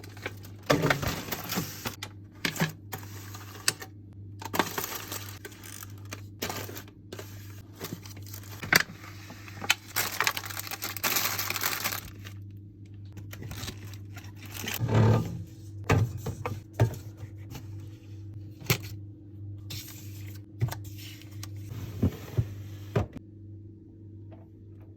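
Groceries and containers being handled and set into a fridge: irregular clinks and knocks with stretches of packaging rustling and crinkling, over a steady low hum. The handling stops shortly before the end.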